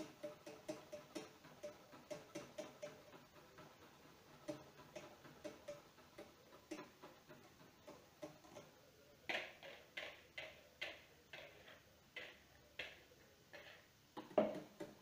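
A stirring utensil clicking against the sides of a metal saucepan as egg yolks and sugar are mixed into hot milk for a custard. The clicks are faint and quick at first, then louder and about two to three a second from about nine seconds in.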